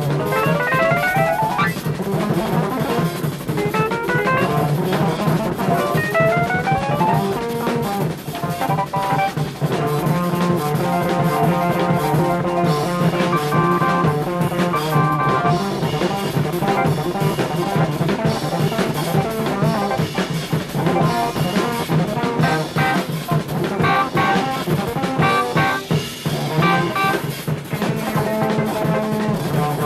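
Jazz-rock fusion band playing live: drum kit with rimshots and bass drum, electric bass, electric guitar and keyboards/synthesizer. Quick rising runs come three times in the first seven seconds, then held chords over busy drumming.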